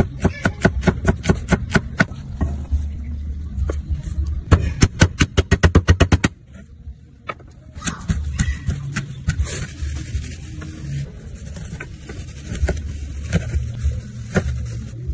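Cleaver chopping vegetables on a thick wooden chopping block: a fast, even run of knocks, speeding up to about eight a second, then about six seconds in it drops to slower, scattered chops.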